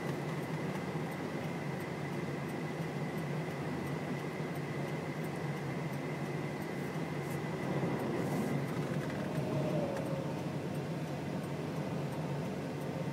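Steady low hum and hiss of a vehicle heard from inside, with a faint high whine that fades out about nine seconds in.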